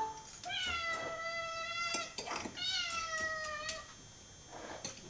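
Domestic cat meowing to be fed: two long meows, each held for more than a second.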